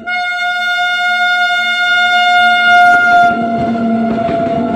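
Electric locomotive's horn sounding one long, steady note, dropping slightly in pitch about three seconds in as the train passes close by. From then on, the rumble and clatter of the locomotive and coaches running past rise under the horn.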